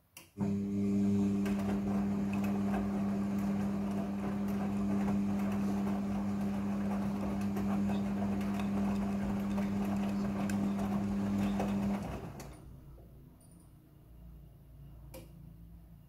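Midea front-loading washing machine in its wash tumble: the drum motor starts with a steady hum while the wet clothes slosh and splash in the turning drum, then the motor stops about twelve seconds in and the sound fades as the drum comes to rest. A single click near the end.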